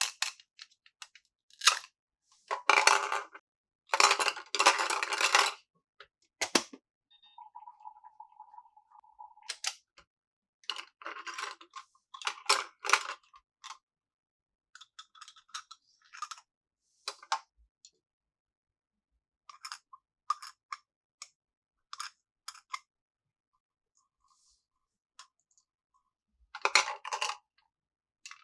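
Small plastic toy pieces and packaging being handled, making a run of clicks, clacks and rustles, loudest in a long rustling stretch a few seconds in. Near the middle there is one steady electronic tone lasting about two seconds.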